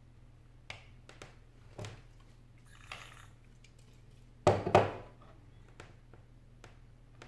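Handling noise from prying at a cracked iPad 4's glass with a metal pry tool on a wooden desk: a few light clicks and taps, a brief scrape, and a louder short clatter of knocks about four and a half seconds in.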